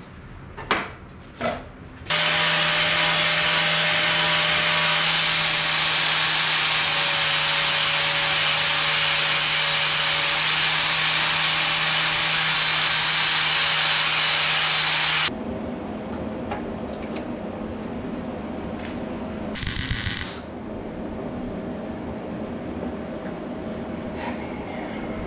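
Electric angle grinder grinding steel on the garden tractor's frame, starting about two seconds in after a few knocks and running steadily until it cuts off suddenly about fifteen seconds in. A quieter steady hum follows, with a short burst of hiss near the end.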